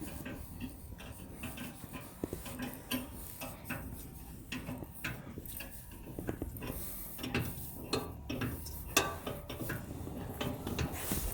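Mini crawler excavator with a rotary tiller attachment working, its engine giving a low steady hum under irregular metallic clinks and rattles.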